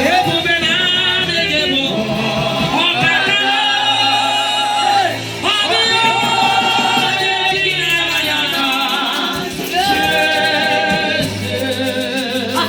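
Gospel worship music: a voice singing long held, wavering phrases over a keyboard-and-bass accompaniment with a steady low bass line.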